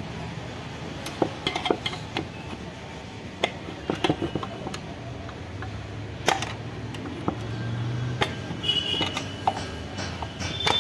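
Scattered clicks, taps and knocks of hands and tools on a Chevrolet Beat's electric power steering control module as its casing is opened, some with a brief metallic ring, and a short high squeak near the end.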